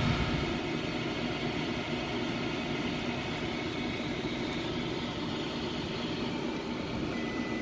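Steady mechanical drone of running machinery. Near the end a multimeter's continuity beep starts as a thin steady high tone, showing that the pressure switch under test is closed.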